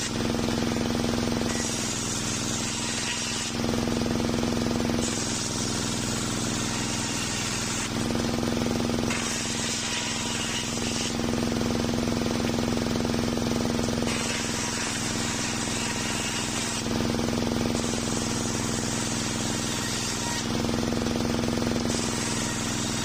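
Homemade engine-driven circular sawmill running with its large circular blade sawing old waru wood into boards. A steady low machine hum runs throughout, while a higher hiss comes and goes about six times, in stretches of one to three seconds.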